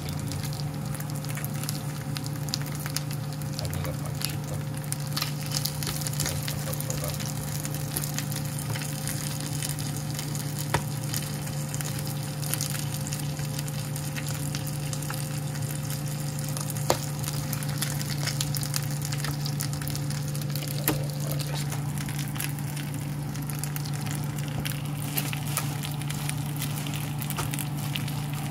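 Chicken pieces frying in a nonstick pan, sizzling steadily with fine crackling and a few sharp pops. A steady low hum runs underneath.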